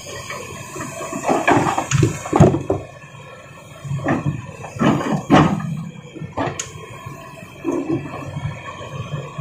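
Small stones clattering and scraping against a toy excavator and toy dump truck as rocks are loaded: a series of irregular knocks and scrapes, with the loudest clatters about two seconds in and around five seconds in.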